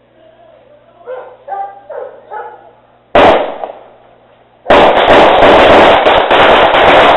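Gunshot-sound car horn on a Toyota Corolla: one sudden, very loud bang just past three seconds in, then a rapid, very loud crackling volley like automatic gunfire lasting about two and a half seconds.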